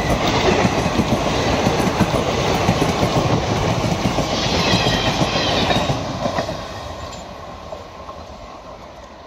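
Train of coaches behind an Indian Railways electric locomotive rolling past, its wheels clattering over the rail joints, then fading away over the last few seconds.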